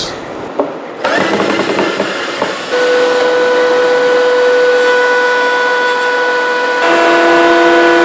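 A benchtop thickness planer's motor starts up, then runs with a steady whine as wood is fed through it. Near the end the whine changes to a different, lower pitch.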